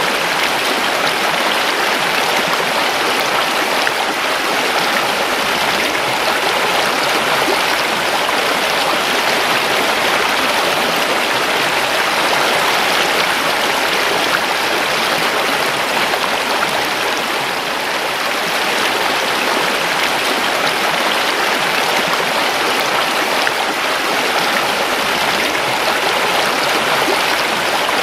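River water flowing over rocks: a steady, continuous rushing and babbling of a stream.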